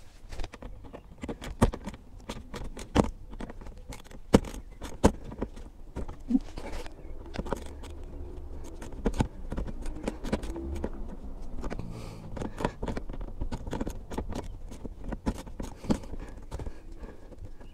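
Small ratchet clicking and tapping as it undoes the screws of a car's plastic undertray, with irregular sharp clicks and knocks of tool against metal and plastic.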